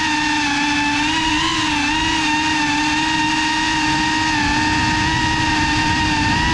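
Brushless motors of a GEPRC FPV quadcopter whining steadily in flight, recorded from the onboard GoPro, with a small rise and dip in pitch about a second and a half in. Low wind rumble underneath.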